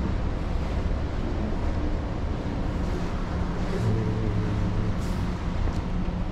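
Steady low rumble and hum of a berthed ferry's onboard machinery and ventilation, heard inside the passenger deck. One hum rises for about a second, around four seconds in.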